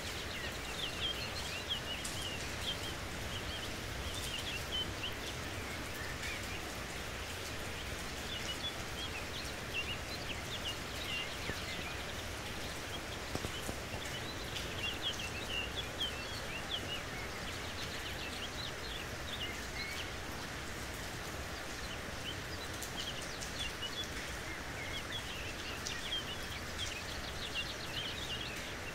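Steady rain falling, with small birds chirping throughout in quick clusters of high notes.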